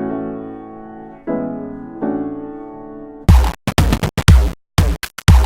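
Electronic music: sustained keyboard chords struck three times and fading, then about three seconds in a chopped, stuttering beat with heavy bass hits and abrupt cut-offs.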